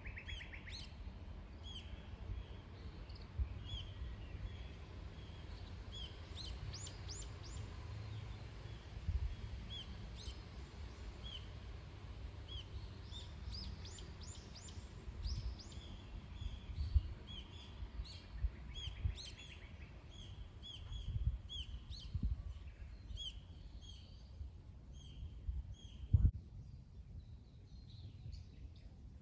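Small songbirds chirping and singing, with many short repeated calls and quick falling notes that thin out near the end. Underneath runs a low outdoor rumble with a few dull thumps, the loudest one near the end.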